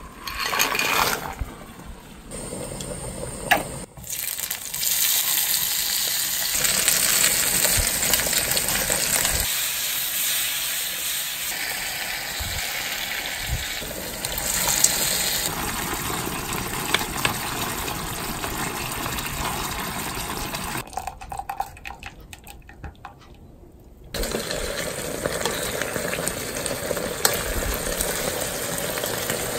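Stovetop cooking sounds across several abrupt changes: a pot of water at a rolling boil with dried rigatoni tipped in, then chopped tomatoes and sauce sizzling in a frying pan and being stirred together with the pasta.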